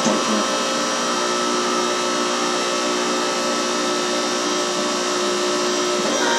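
Hydraulic power unit of a homemade hydraulic forging press running steadily, its motor-driven pump giving a continuous mechanical hum and whine with several steady tones, while the control valve is worked to move the ram.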